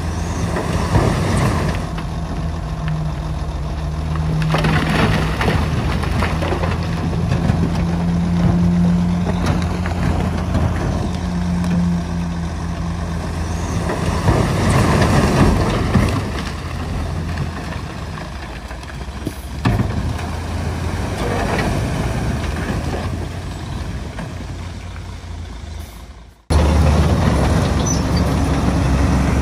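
Heavy diesel engines of Komatsu bulldozers and dump trucks running steadily, with several louder noisy stretches on top. The sound breaks off sharply near the end and a similar engine sound picks up again at once.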